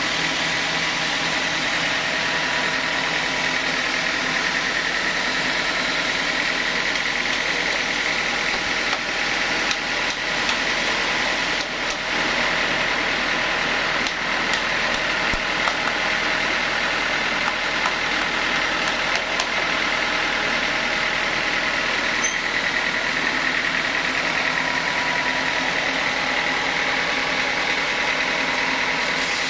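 Sawmill saw running steadily: a dense, even machine noise with a high steady whine.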